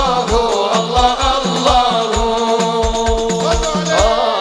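Devotional sholawat singing through a PA: a lead voice with others chanting along, backed by hadrah frame drums and a deep drum keeping a steady beat of about two to three strokes a second.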